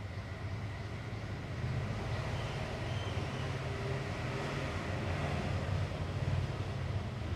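Gram-flour-battered bread triangles sizzling steadily as they deep-fry in hot oil in a kadai, over a constant low rumble.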